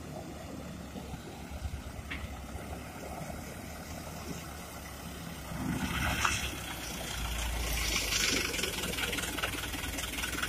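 Heavy diesel engines of an excavator and dump truck running, a steady low drone. From about six seconds in it grows louder, with a rushing, hissing noise on top.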